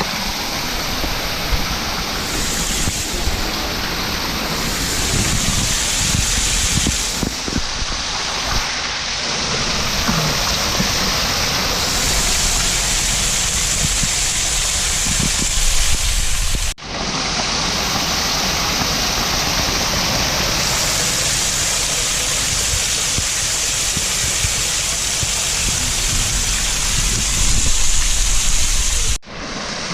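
Spring-fed waterfall rushing steadily, a loud even wash of falling water, broken twice by sudden brief dropouts, about halfway through and near the end.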